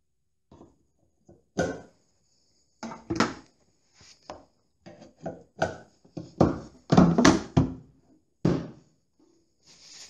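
The lid of a metal emulsion paint tin being worked by hand: a series of sharp knocks and clanks, coming thickest and loudest a little past the middle.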